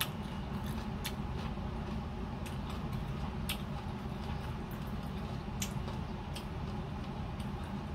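Mouth sounds of someone eating mango: wet clicks and smacks of chewing, scattered irregularly, over a steady low rumble.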